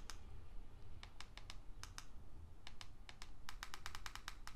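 Plastic button clicks as arrow keys are pressed again and again to step the highlight across an on-screen keyboard: scattered single presses, then a quick run of clicks near the end.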